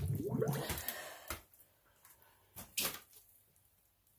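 PVC discharge pipe being worked into the rubber coupling on top of a sump pump: rubbing and handling at first, then a few short knocks of plastic pipe against the fitting.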